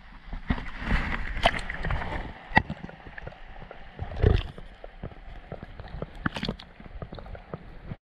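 Water sloshing and gurgling around a hand holding a smallmouth bass under the surface to release it, heard with the camera dipped underwater. Several sharp splashes and knocks break the wash, the loudest about four seconds in, before the sound cuts off suddenly near the end.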